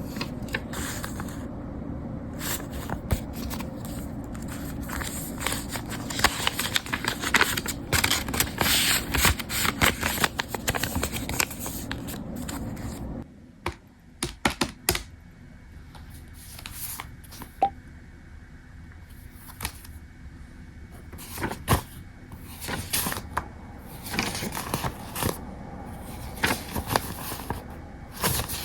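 Rapid small clicks and scrapes of objects being handled close by, dense for about the first half over a steady low hum. About halfway through, the hum stops and the clicks thin out to scattered taps.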